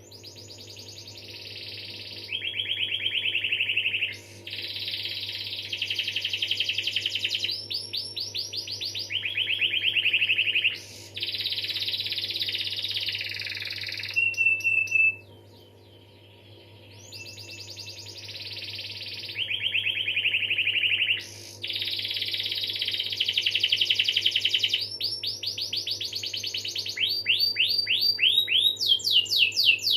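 Domestic canary singing a long rolling song: fast trills each held a second or two before switching to a new pitch, with a short pause midway and rising-and-falling sweeping trills near the end. A faint steady low hum runs underneath.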